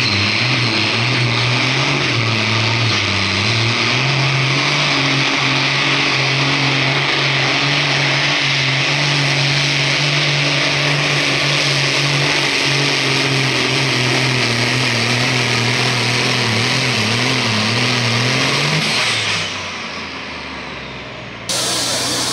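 Pro stock diesel pulling truck at full load pulling the sled, its engine note with a high whine above it. The pitch steps up in the first few seconds, holds steady, then drops away near the end as the driver gets off the throttle.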